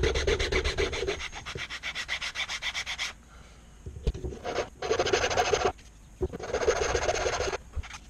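Flat hand file scraping along the edges of a small pine cutout in quick, short strokes. There is one long run, then a pause, then two shorter bursts of filing.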